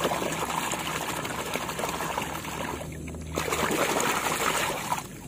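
Muddy water splashing and sloshing as a hand scrubs a plastic toy truck in it. It gets louder for a stretch about three seconds in.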